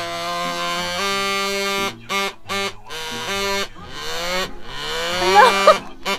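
Small vibrating adult toy (a bullet-style rotor vibrator on a shelf tester) buzzing, its pitch stepping between speeds. About two seconds in, it switches to a pulsing mode, cutting in and out several times a second, then rises in pitch and pulses again near the end.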